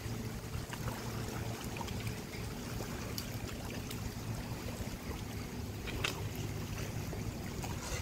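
Steady rush of the fast-flowing Niagara River current along the shore, with a low rumble underneath and a couple of faint clicks.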